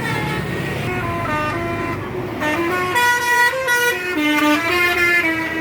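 Tour bus's basuri 'telolet' musical horn playing a quick tune of held notes that step up and down. It gets louder from about halfway through.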